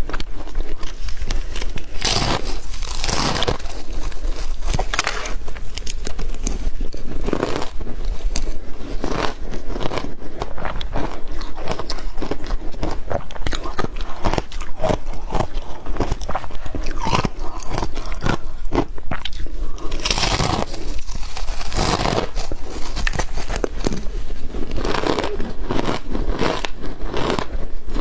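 Close-miked biting and chewing of frozen yellow powdery snow, a dense run of crisp crackling crunches, with heavier bites about two seconds in and again around twenty seconds in.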